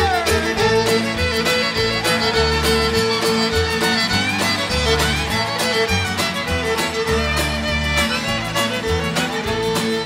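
Country-bluegrass instrumental break, a fiddle leading over a steady picked rhythm and alternating bass notes.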